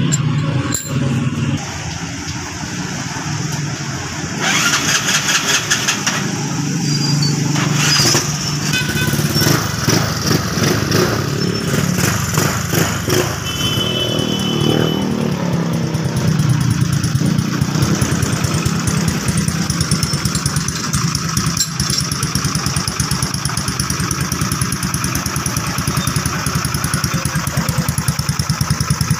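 Motorcycle engine running, its pitch rising and falling through the first half, then running steadily.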